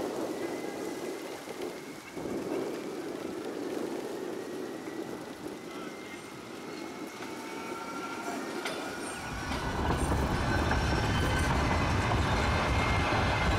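Streetcar running on its rails, with faint thin squealing tones from the wheels. A low rumble comes in about nine seconds in and the sound grows louder.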